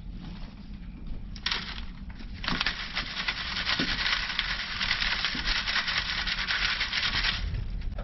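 Worm compost and bedding being rubbed and shaken by hand across a quarter-inch wire mesh sifting screen, castings falling through onto a plastic tray below: a brief scrape about one and a half seconds in, then a continuous dry, scratchy rustling for about five seconds that stops shortly before the end.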